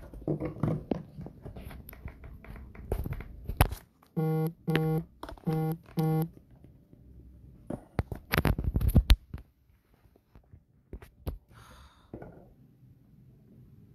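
Smartphone being handled, its microphone picking up rubbing and knocks, with four short buzzing tones in quick succession near the middle.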